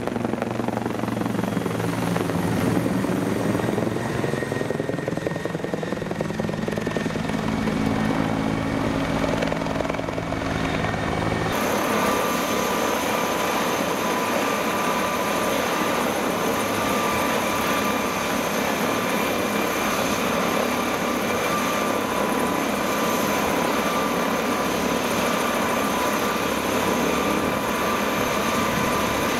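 Bell 412 helicopter flying overhead, the pitch of its rotor and turbines sliding down and back up as it manoeuvres. After a cut about eleven seconds in, the same helicopter is on the ground with its rotors still turning: a steady turbine whine over the rotor beat.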